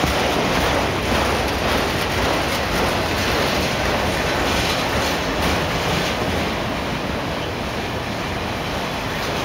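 Loaded autorack freight cars rolling past close by: a steady, loud noise of steel wheels running on the rail, easing off slightly in the second half.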